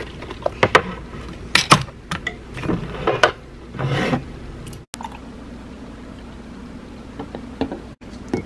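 Milk poured from a metal drink can into a mug, with sharp clinks and knocks of the can, the mug and a plastic syringe; the second half is quieter.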